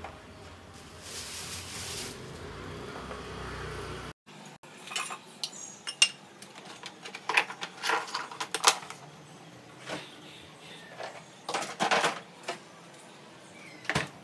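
Kitchenware being handled: a run of sharp clicks and clinks as eggs are lifted out of a plastic egg tray and set into a small steel bowl, and the tray is moved about. Before it, a steady hiss cuts off about four seconds in.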